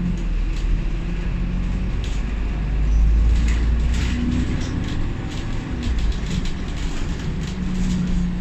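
Alexander Dennis Enviro500 MMC double-decker bus under way, heard from inside the lower deck: a steady low engine rumble with a droning note that shifts in pitch, and loose clicks and rattles from the interior fittings. The rumble swells briefly about three seconds in.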